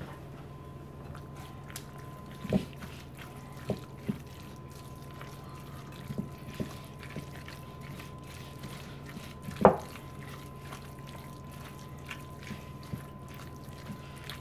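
Silicone spatula folding a thick, creamy chicken and vegetable mixture in a glass mixing bowl: soft wet squelching, with a few knocks of the spatula against the glass, the loudest about ten seconds in. A steady low hum and a faint thin tone run underneath.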